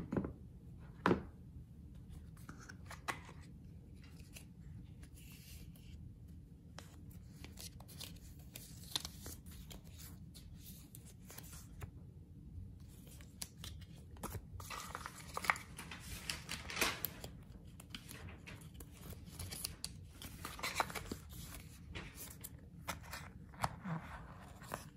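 Hands handling smartphone packaging: paper and plastic rustling and tearing, with scattered taps and clicks. Two sharper knocks come in the first second or so.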